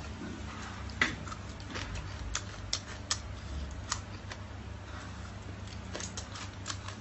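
Scattered crisp crunches and clicks from biting and handling skewered deep-fried scorpions, over a low steady hum.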